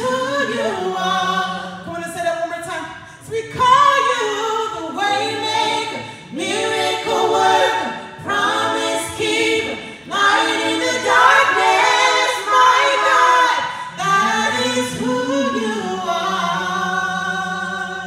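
A cappella vocal quartet of four female singers in close harmony, no instruments, ending on a long held chord sung with vibrato.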